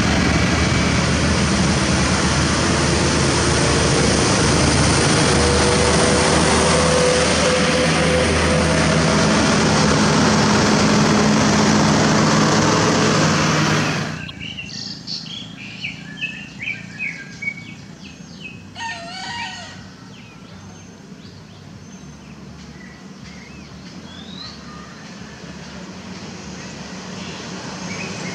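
Steady road traffic noise from passing cars, trucks and motorbikes, which cuts off abruptly about halfway through. Then a quieter stretch with birds chirping, and a heavy truck's engine growing louder toward the end as it approaches.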